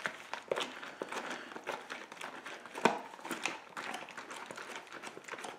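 Foil-lined food pouch crinkling and crackling as it is squeezed and kneaded by hand to mix the dry salad with water and oil, in irregular small rustles with one sharper crackle about three seconds in.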